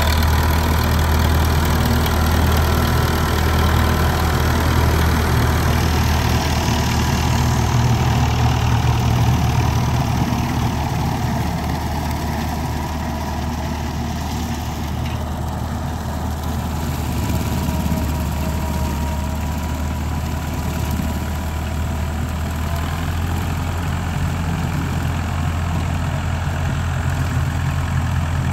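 Massey Ferguson 165 tractor engine running steadily under load while pulling a rotary cutter through grass. The low drone eases somewhat in the middle and grows louder again near the end.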